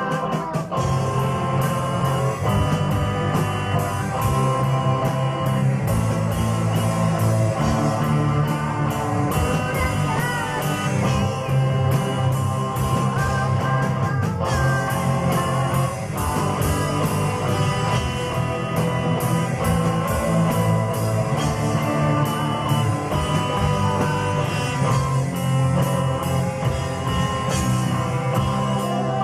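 Live rock band playing: drums, bass, electric guitars and keyboard, with a female singer.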